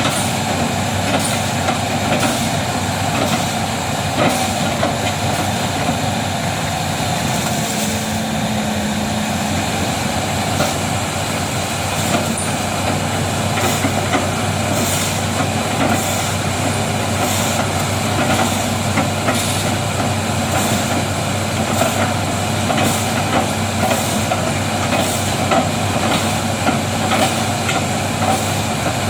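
Excavator's diesel engine running steadily under load as it chops up oil palm trunks, with frequent sharp cracks and knocks of the trunks being chipped over the engine's drone.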